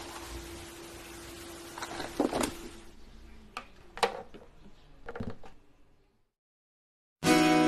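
A few sharp clicks and knocks over a faint steady hum, then a second of silence, after which acoustic guitar strumming starts loudly near the end.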